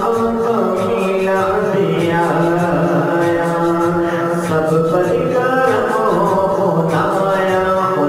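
Devotional naat-style vocal music: a voice singing long held, wavering notes without words, over a steady low drone.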